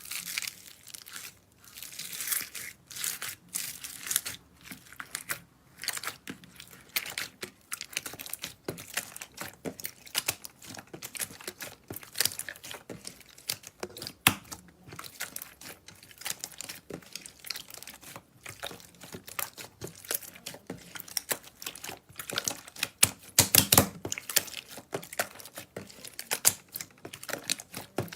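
Slime being squeezed, poked and pressed by hand, making dense, irregular crackling and popping clicks that grow louder for a stretch near the end.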